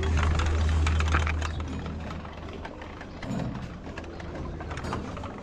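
Metal prayer wheels being spun by hand along a row, with scattered clicks and knocks. A low rumble is loudest in the first two seconds and fades after that.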